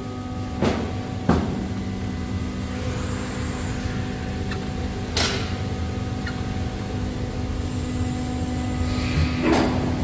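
Bystronic Xpert 320 CNC hydraulic press brake idling with a steady hum from its hydraulic pump, while a sheet of chequer plate knocks sharply against the tooling and back gauge a few times as it is positioned.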